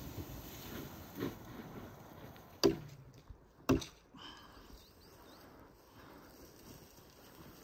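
An axe chopping into wood: two sharp chops about a second apart, after a fainter knock.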